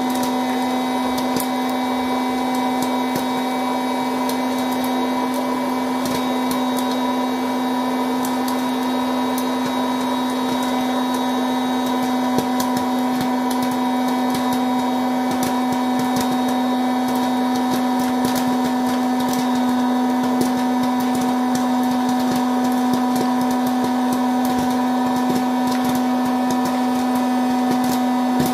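Hot-air popcorn machine running: its fan and heater motor give a steady hum while popcorn kernels pop irregularly, many small sharp pops spread through the whole time.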